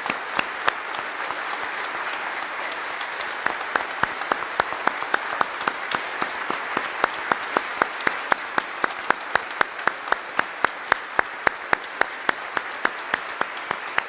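A large congregation applauding steadily, with one clapper close by beating sharp, even claps about three a second from a few seconds in.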